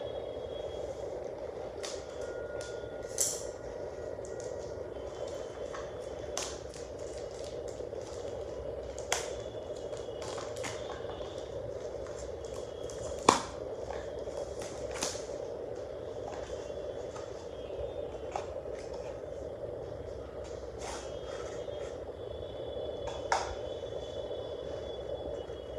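Unboxing noises: plastic shrink-wrap being cut and peeled off a small cardboard box, then the box being opened. Scattered sharp clicks and crinkles, the loudest about a third of the way through, sound over a steady background noise.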